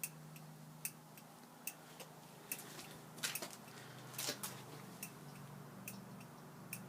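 Honda CB350 motorcycle's turn-signal flasher clicking steadily, a little more than once a second, as the newly working turn signals blink.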